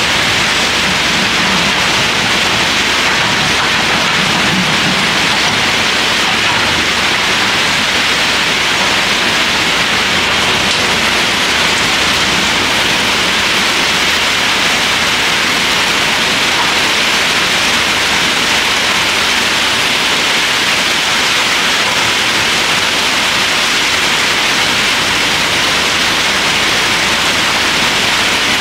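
Heavy rain falling steadily, a dense even hiss throughout. Underneath it a Doosan excavator's diesel engine runs low, a little more noticeable in the first few seconds.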